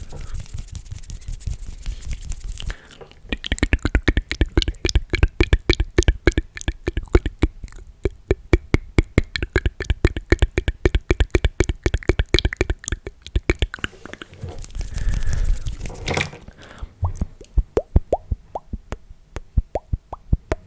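Close-miked ASMR mouth sounds: wet tongue and lip clicks. They come in a fast run of several a second, with breathy noise at the start and again about two-thirds of the way in. Near the end they slow into hollow pops.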